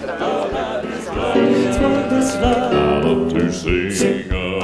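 Male vocal quartet singing in close harmony with band accompaniment and a steady beat. The voices swell to full strength about a second in.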